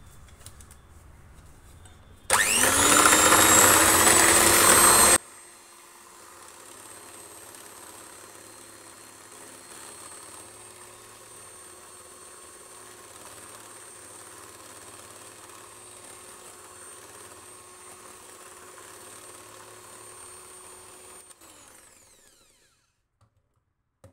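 Electric hand mixer beating a thin cream mixture in a glass bowl. It spins up about two seconds in and runs loud for about three seconds. It then runs much quieter and steadily, and winds down and stops a couple of seconds before the end.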